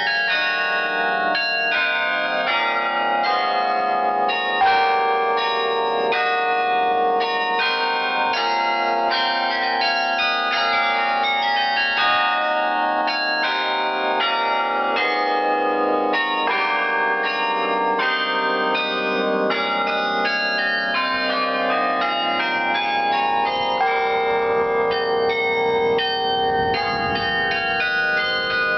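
A carillon played by hand from its clavier: many tuned bells struck in quick succession, several notes a second, ringing on into one another as a continuous melody.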